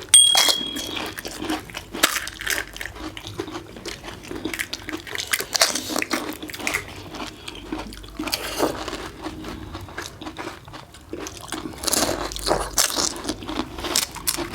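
Pani puri being eaten: crisp hollow puri shells crunching and cracking in the mouth in an irregular run of short crunches, with wet sounds of the spiced water.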